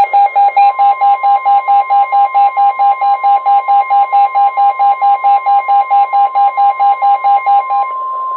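NOAA Weather Radio warning alarm tone, a loud steady tone, with a weather radio receiver's pulsing alert beep over it at about four beeps a second. The beeping stops near the end while the steady tone goes on. It signals that a new warning, here a special marine warning, is about to be read.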